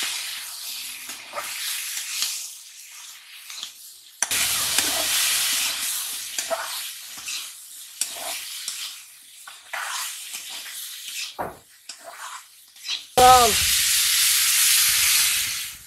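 Potatoes, chillies and greens frying in oil in an iron karahi, sizzling as a metal spatula stirs and scrapes them around the pan. About thirteen seconds in, water is poured into the hot oil and a sudden loud hiss of steam goes up.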